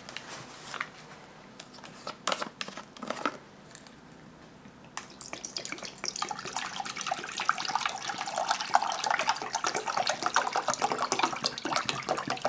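Water pouring from a plastic military canteen into a metal canteen cup, starting about five seconds in and running on steadily. Before the pour, a few sharp clicks and knocks of handling.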